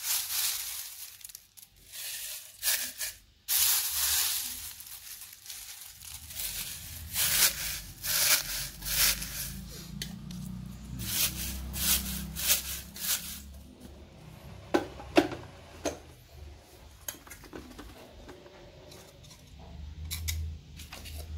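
Dry, brittle neem leaves crackling and rustling as a hand rummages through them in a plastic basket, in a series of short crisp crackles.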